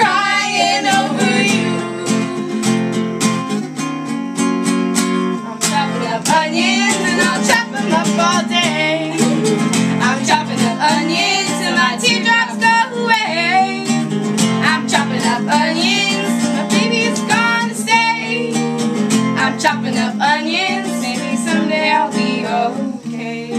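Acoustic guitar strummed in a steady rhythm while a woman sings along, a live two-person performance of a pop song.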